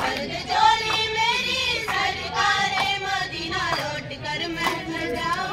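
Girls' voices singing a qawwali, the lead voice through a microphone, with hand claps keeping time about once a second.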